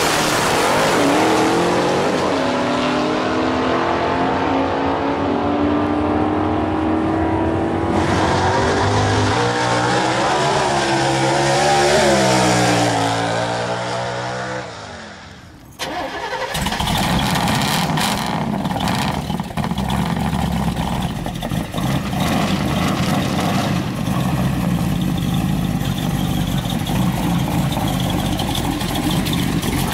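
Drag-racing muscle-car V8s under full throttle down the strip, engine pitch climbing through the gears and fading as the car pulls away. About halfway this cuts to a Camaro's 427 cu in (7-litre) V8 running at close range with a rough, steady sound.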